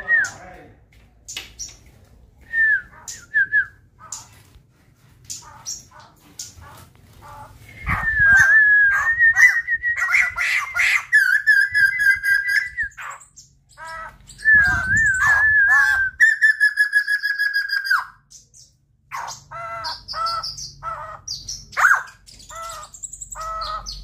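White-crested laughingthrush calling: a run of sharp chips, then long wavering whistled notes, and near the end a series of short repeated calls.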